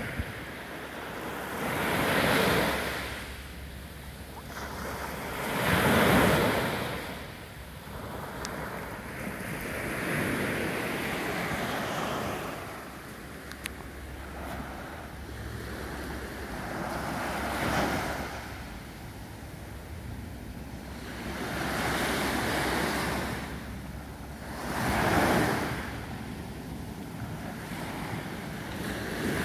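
Small waves of a calm sea breaking and washing up a sandy beach, each wash of surf swelling and fading about every three to five seconds.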